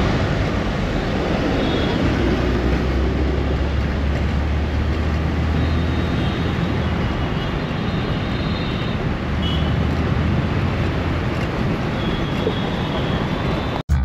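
Road vehicle and traffic noise: a steady low engine rumble under a wash of street noise, with a few faint short high tones.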